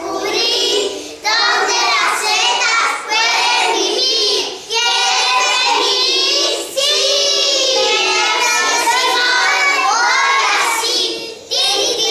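Young children singing a song in Spanish, in short phrases with brief pauses between them.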